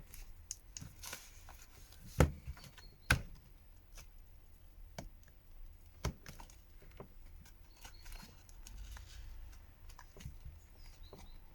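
Scattered light clicks and scrapes of a plastic pry card worked along the edge of a phone's glued back cover, with a few sharper clicks along the way.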